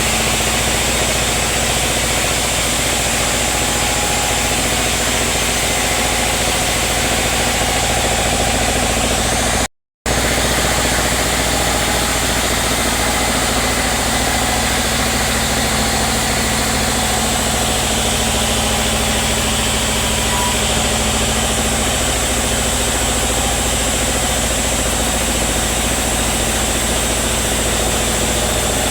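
Sawmill machinery running steadily with an engine-like hum, cutting out for a split second about ten seconds in.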